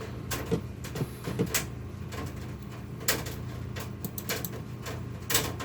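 A computer mouse clicking several times at irregular intervals, over a steady low hum.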